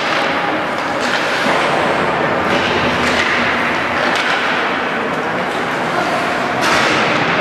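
Ice-rink play: skate blades scraping on the ice, with a few sharp clicks of sticks or puck, over a steady noise of the hall.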